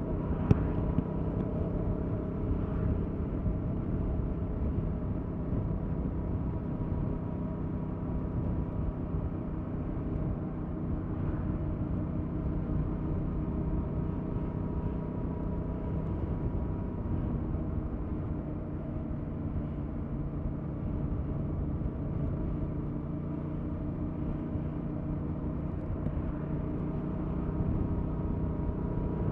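Yamaha MT-07's parallel-twin engine with its stock exhaust running steadily, its pitch holding nearly constant.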